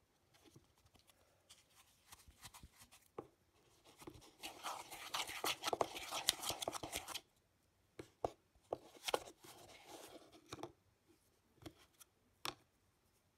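Fingers kneading and squeezing a sticky, crumbly homemade slime mixture and scraping it around a bowl: wet crackling and sticky clicks, densest for a few seconds in the middle, then scattered squishes and sharp clicks.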